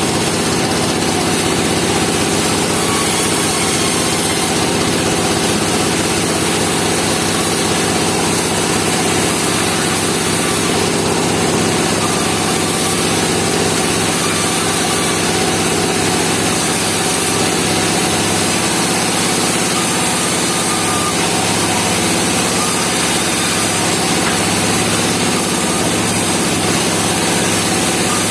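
A band sawmill running with a steady engine drone.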